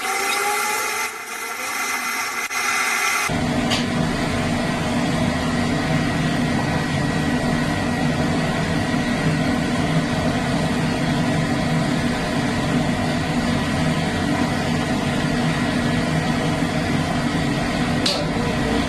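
A steady high hiss with several steady whining tones stops abruptly about three seconds in. A steady low machine hum and rumble takes over, with a single click near the end.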